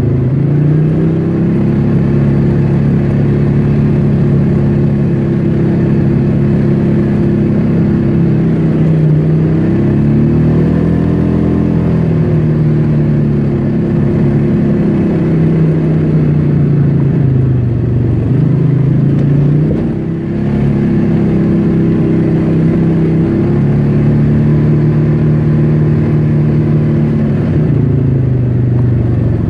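Off-road vehicle engine running on a dirt trail, its note rising and falling again and again as the throttle is eased on and off, with a brief drop about twenty seconds in.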